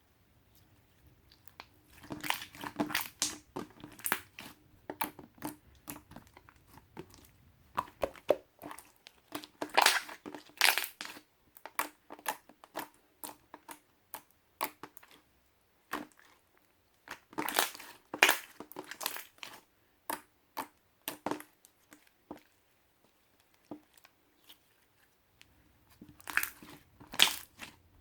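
Slime being squeezed and pressed by hand, giving off bursts of sticky clicks and crackles, with quieter stretches between the bursts.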